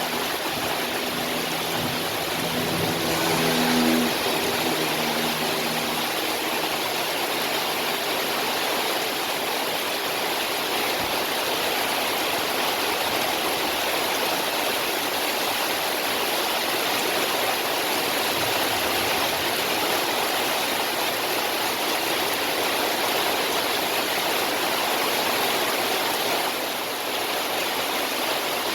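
Heavy rain pouring down in a steady, unbroken rush of water. A brief pitched sound rises over it during the first few seconds, loudest about four seconds in.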